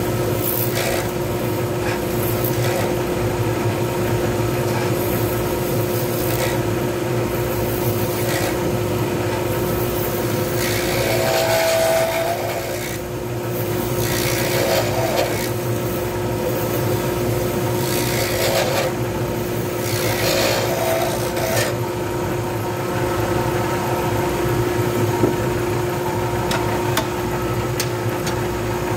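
Wood lathe motor humming steadily while sandpaper is held against the spinning wooden pen blank, making a continuous rubbing rasp that swells and eases in places.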